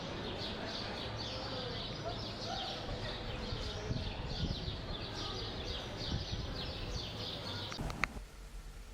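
Many birds chirping together over a murmur of people's voices, cut off abruptly with a click about eight seconds in.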